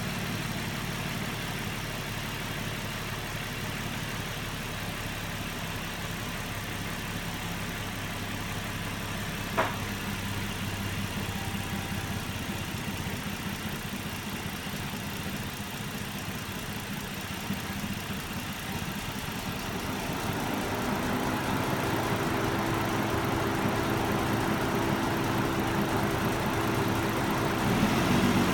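Nissan Murano engine idling roughly, a steady low running note with a single sharp click about a third of the way through. About two-thirds of the way in it grows louder and a higher steady hum joins in.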